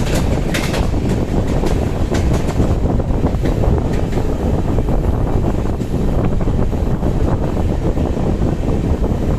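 A moving train: a steady, loud low rumble with wind buffeting the microphone, and a quick run of clicks and knocks in the first few seconds.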